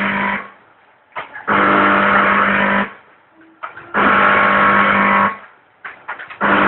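Soy milk sachet packing machine running through its cycle: a steady humming run of just over a second that repeats about every two and a half seconds, each run preceded by a few short clicks.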